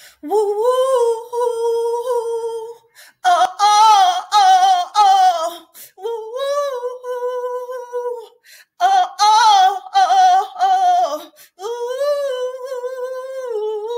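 A woman singing unaccompanied and without words, in five long held phrases with a wavering vibrato, pausing briefly for breath between them.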